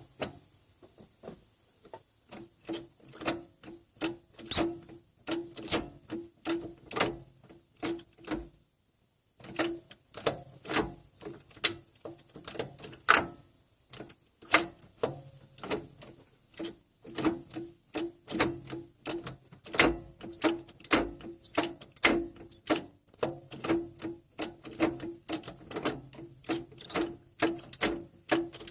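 Toyota Corolla E150 gear shift mechanism squeaking as the shifter is worked, giving many short repeated squeaks with sharp clicks, about one to two a second with a brief pause about a third of the way in. The squeak in the shift mechanism is the fault being shown.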